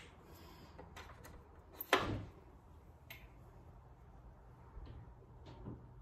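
Thread spools being set onto the pins of a thread stand: a few light clicks and knocks, the loudest a sharp knock about two seconds in.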